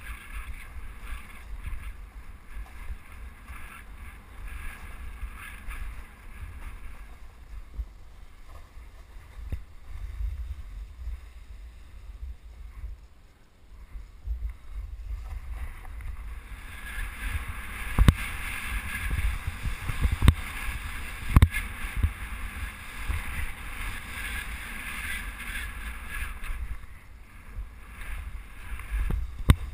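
Wind buffeting the camera microphone in a steady low rumble during a fast descent on snow, with the hiss of snow scraping under the rider coming and going, strongest in the second half. A few sharp knocks as the rider rides over bumps.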